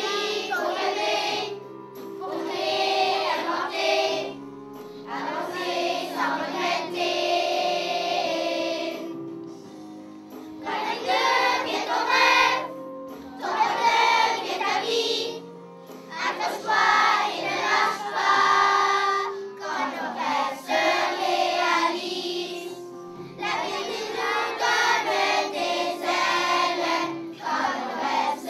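A children's choir singing a song in unison with instrumental accompaniment, in phrases separated by short pauses.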